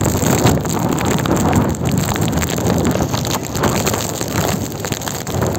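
Typhoon wind gusting in heavy rain, buffeting the phone's microphone with a low, uneven rumble.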